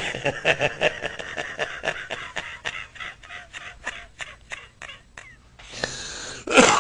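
An elderly man laughing hard in a long string of short breathy bursts, about four a second, that slowly taper off. A louder breathy burst follows near the end.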